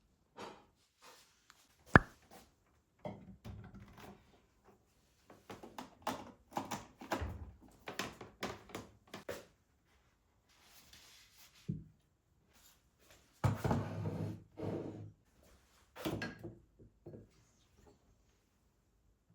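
Household handling sounds: a run of knocks and clatters as objects are picked up and set down, with a sharp knock about two seconds in and a heavier thud with clatter about two-thirds of the way through.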